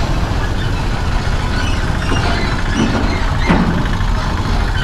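KTM 390 Adventure's single-cylinder engine running at low speed in heavy road traffic beside trucks, with a steady rumble of engines and road noise. About three seconds in come a couple of short sliding squeal-like tones.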